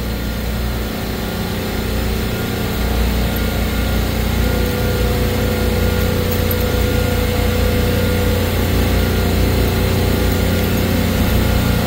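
Supermarket refrigeration compressor rack running: a loud, steady mechanical hum and hiss, with a faint steady whine coming in about four seconds in.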